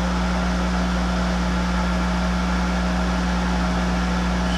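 Monarch 10EE lathe running steadily at about 1,200 RPM, an even machine hum with a hiss over it.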